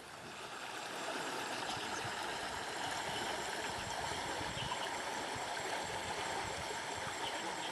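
Steady ambient rushing noise, an even hiss with no distinct events, fading in over the first second.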